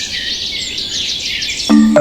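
Many small birds chirping and trilling in quick overlapping calls. Near the end, sustained music notes come in beneath the birdsong.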